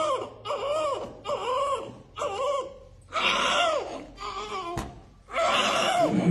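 Newborn baby crying in a string of short, high wails, each rising and falling in pitch, with brief pauses between them. A single sharp knock sounds about five seconds in.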